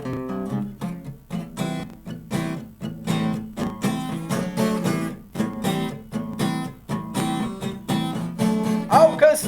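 Acoustic guitar strummed in a steady rhythm, an instrumental passage of a live rock ballad, with the lead vocal coming back in at the very end.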